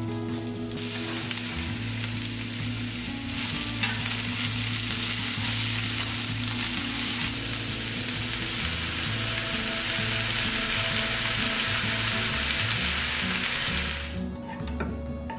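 Food sizzling in a hot pan: the hiss starts about a second in, grows louder a few seconds later, and cuts off near the end.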